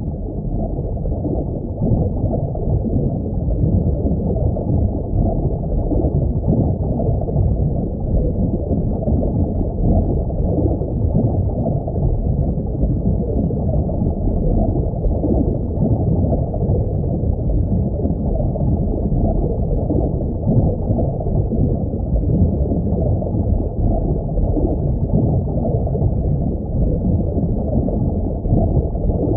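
Steady, muffled low rumbling water noise of an aquarium's underwater ambience, swelling up over the first second or two.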